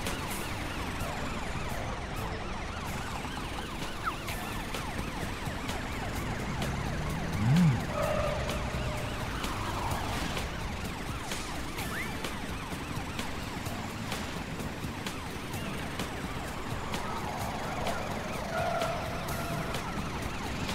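Cartoon sound effects of emergency vehicles on a call-out: sirens wailing over the steady noise of vehicles driving. About seven and a half seconds in, a short low sound rises and falls.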